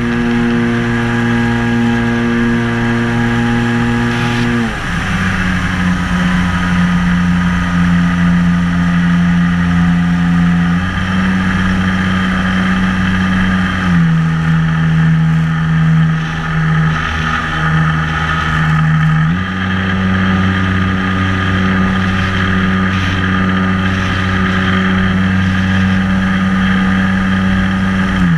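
Onboard sound of a 1400 mm radio-controlled J-3 Cub's electric motor and propeller: a steady whine held at one pitch. The whine drops lower about five seconds in, rises again around eleven seconds, drops at fourteen seconds and rises once more near nineteen seconds as the throttle is changed.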